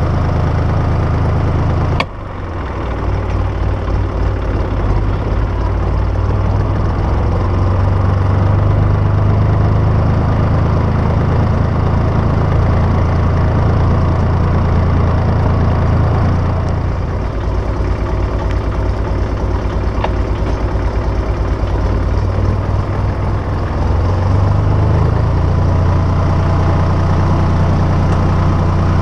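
1967 IHC 423 tractor's diesel engine running steadily as the tractor drives. About two seconds in there is a sharp click, and the engine note drops, then builds back up over the next couple of seconds.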